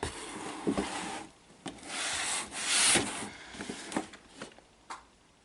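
Hands rubbing and sliding over a toy's packaging: two stretches of scraping noise, the second louder, with a few light taps in between and after.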